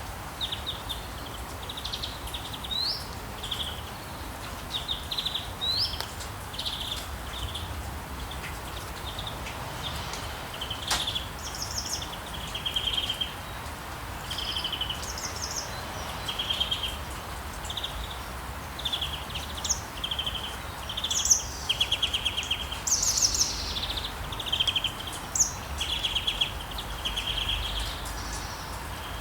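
Steady rain hiss with songbirds chirping over it: short trills and quick rising chirps, roughly one a second, growing busier in the second half. One sharp click stands out about eleven seconds in.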